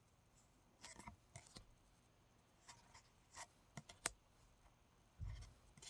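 Faint, scattered clicks and light rustles of trading cards being handled and slid one behind another, with a sharper click about four seconds in and a soft low bump near the end.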